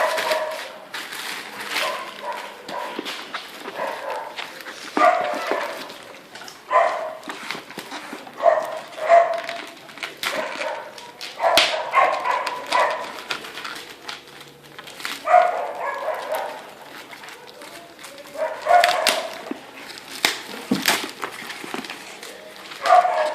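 A dog barking over and over, short barks in bouts every second or two, with small clicks and rustles between them.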